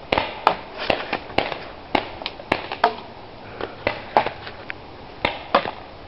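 Paintball markers firing: a rapid, irregular string of sharp pops, about two or three a second, some of them the paintballs smacking into the wooden bunker.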